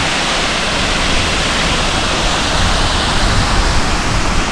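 Waterfall rushing: a steady, loud wash of falling water.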